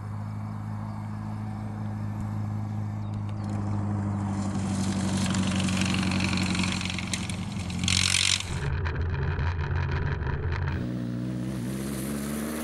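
Engine of a vintage open-wheeled racing roadster running under way, growing louder as the car approaches. A short hiss comes about eight seconds in, and the engine note changes twice in the second half.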